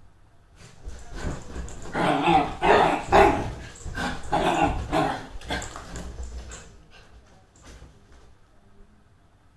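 Excited dachshund barking in a quick run of short, rough barks over the first six seconds, then falling quiet.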